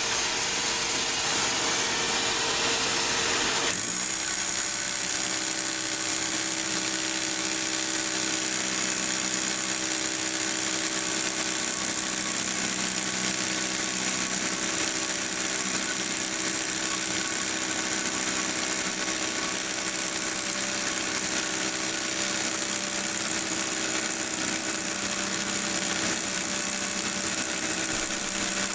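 Electric power tool motor running steadily with a hum and a hiss; its note changes about four seconds in, then holds.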